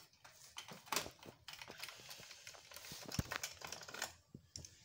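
Hand screwdriver turning a screw in a TV's sheet-metal chassis frame: a run of small irregular clicks and metal scraping, with a few sharper clicks among them.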